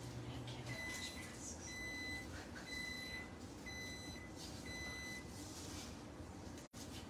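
An electronic beeper sounding five steady high beeps, each about half a second long, about one a second.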